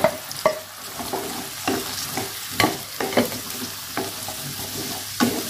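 Wooden spatula stirring green beans in a wok, scraping and knocking against the pan in irregular strokes over a steady sizzle of the beans in hot oil and water.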